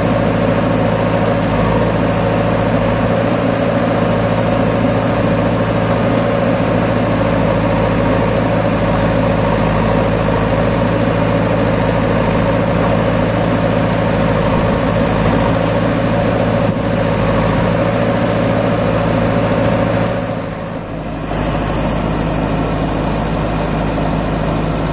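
Diesel engines of a JCB 3DX backhoe loader and a Sonalika tractor running steadily at close range, a constant low drone that dips briefly near the end.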